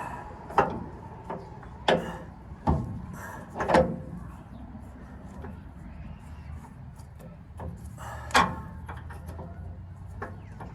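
Hand tools knocking and clanking on the truck's front steering parts during removal of the Pitman arm: five separate sharp knocks, some with a short ring after them, spread over several seconds.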